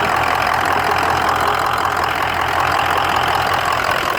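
Ford 6.0 Power Stroke diesel V8 idling steadily.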